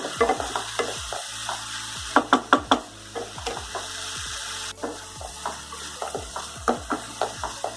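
A spoon stirring and scraping vermicelli and sugar in a kadhai, with a steady sizzle underneath as the water cooks off; a cluster of louder scrapes comes about two seconds in.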